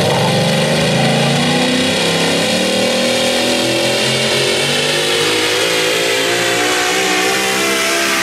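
Supercharged engine of a super modified four-wheel-drive pulling truck running at full throttle under load as it drags the sled. The pitch climbs slowly and steadily as the truck gains speed down the track.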